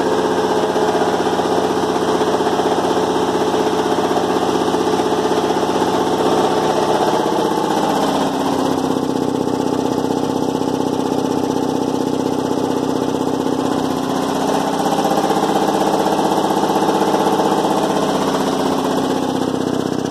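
Ingersoll Rand 7.5 hp belt-driven reciprocating air compressor running steadily, its electric motor driving the pump flywheel through V-belts. The tone shifts slightly about eight seconds in.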